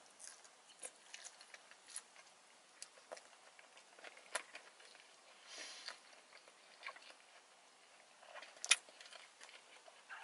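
A person chewing a mouthful of sushi roll close to the microphone: quiet, wet mouth clicks and smacks scattered throughout, with one sharper click near the end.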